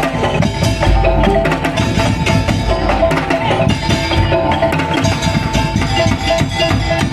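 Madurese daul (tong-tong) percussion ensemble playing: wooden slit drums and drums strike a fast, dense rhythm under a held, wavering melody line.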